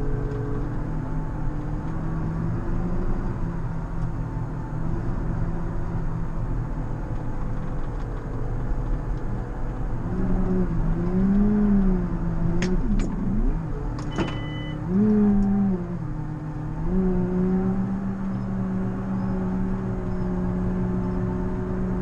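JCB Fastrac 4220 tractor's six-cylinder diesel running steadily under load while plowing snow, heard from inside the cab. About halfway through its pitch rises and falls a few times, with a few sharp clicks, then holds at a steady, slightly higher note.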